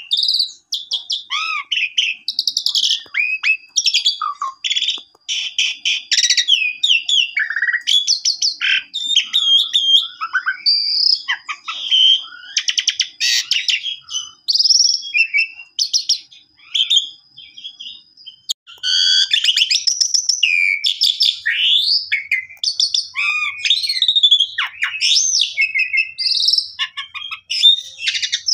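Asian pied starling (jalak suren) in full, vigorous song: a long, varied run of whistles, gliding notes and rattling chatter with mimicked calls mixed in. There is a short break about eighteen seconds in before the song resumes.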